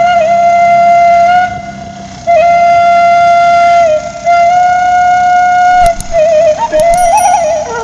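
Background music: a flute melody of long held notes, with a quick wavering run near the end.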